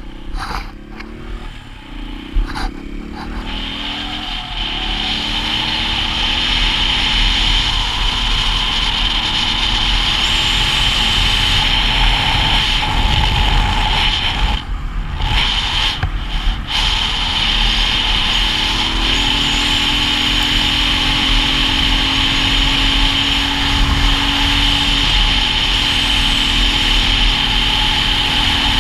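Single-cylinder dual-sport motorcycle engine pulling up through the gears, rising in pitch in steps over the first few seconds, then holding a steady cruise. Heavy wind rush over the microphone runs under the engine the whole time.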